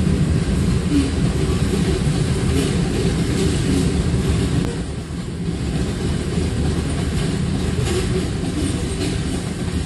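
Covered hopper cars of a freight train rolling past: a steady heavy rumble with occasional clacks of wheels over rail joints.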